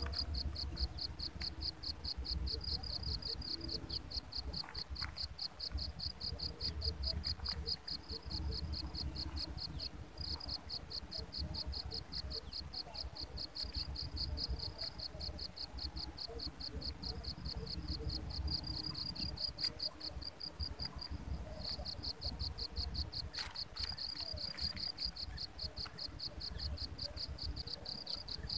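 An insect, such as a cricket, trilling steadily in rapid, even high-pitched pulses, with short breaks about ten seconds in and again around twenty seconds in.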